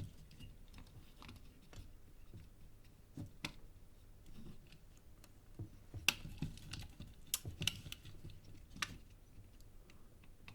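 Scattered light clicks and taps of tools and parts on a circuit board during through-hole soldering, with a few sharper clicks from about six to nine seconds in.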